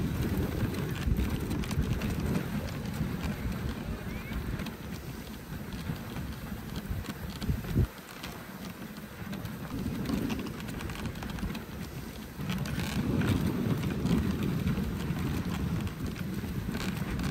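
Dog sled moving over packed snow behind a husky team, its runners sliding and scraping in a steady rushing noise. About eight seconds in there is a short knock, and the noise is quieter for a few seconds after it.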